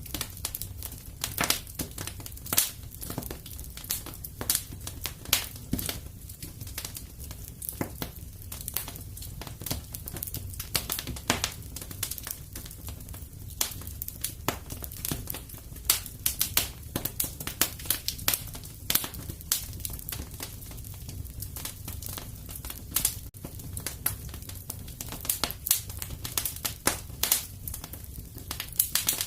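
Wood fire crackling: irregular sharp pops and snaps, several a second, over a steady low rumble of the burning fire.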